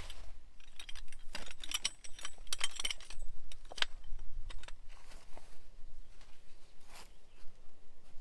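Light metallic clinks and rattles of small hard objects being handled, thickest in the first half with a few single clinks later.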